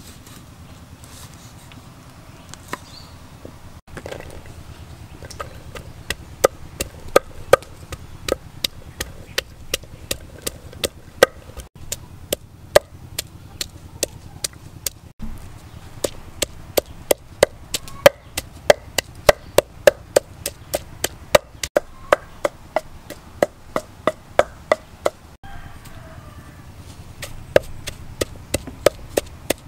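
Wooden pestle pounding garlic, chilies and salt in a terracotta mortar: a steady run of sharp knocks, about two to three a second, with a few short pauses. It opens with a few quieter knife taps on a wooden chopping board.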